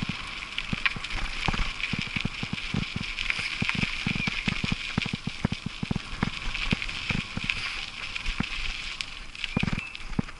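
Bicycle riding over a rough dirt and gravel track: a steady crunching hiss of the tyres on grit, with rapid, irregular low knocks and rattles as the bike jolts over bumps.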